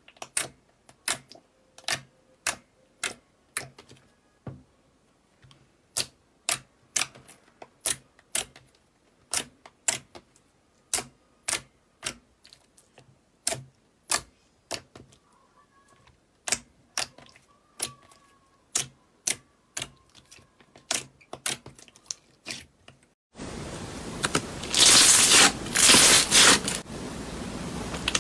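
Slime being pressed and poked, giving sharp clicking pops about two a second. About 23 seconds in it changes abruptly to louder crackling and scraping.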